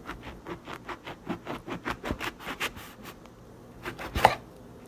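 Kitchen knife sawing through the rind of a five-month-old grapefruit: a quick series of short rasping strokes, then one louder crunch about four seconds in.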